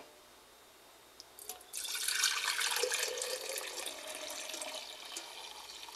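Red cabbage liquid poured in a steady stream from a metal pot into a glass mason jar, splashing as the jar fills. The pouring starts about a second and a half in.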